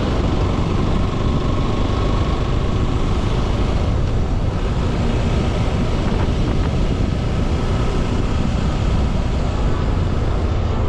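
Motorcycle running steadily at road speed, its engine mixed with heavy wind and road noise on the microphone.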